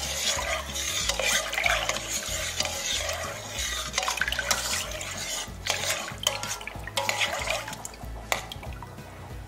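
A metal spoon stirring a thin garlic sauce in a stainless-steel pot: continuous swishing of the liquid, with a few sharper clinks of the spoon against the steel. The stirring grows quieter near the end.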